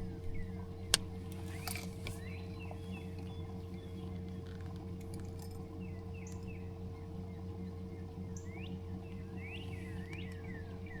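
Small birds chirping in short, quick calls again and again, over a steady low hum, with one sharp click about a second in.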